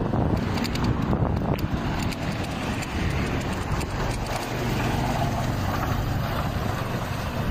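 Wind and road noise on a handlebar-mounted phone while riding a bicycle on a concrete street, with rattling clicks in the first second or two and motor traffic running alongside.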